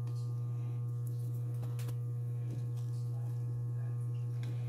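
Steady low electrical hum, like mains hum, with a few faint light clicks of handling.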